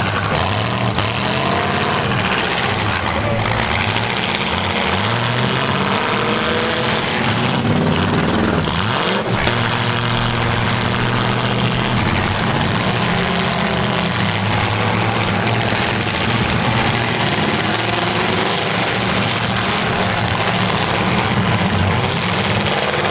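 Several demolition derby cars' engines revving hard together, their pitches rising and falling over a loud, steady roar.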